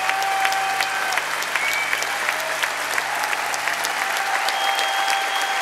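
Concert audience applauding, steady clapping with a few held whistles over it.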